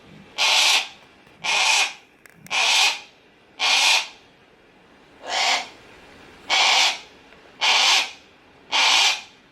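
Harris's hawk giving harsh, rasping screams, eight calls of about half a second each, roughly one a second with a slightly longer pause in the middle.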